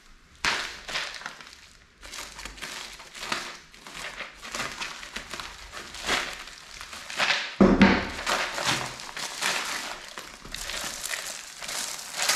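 Plastic mailer bag crinkling as it is handled and cut open with scissors, then an inner clear plastic bag rustling as it is pulled out. A single thump about seven and a half seconds in is the loudest sound.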